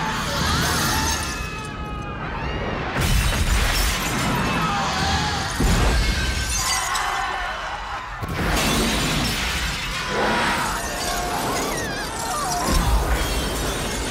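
Film sound of explosive decompression: a loud rush of escaping air with a low rumble and breaking glass and debris, and people screaming, swelling in surges about three, six and thirteen seconds in.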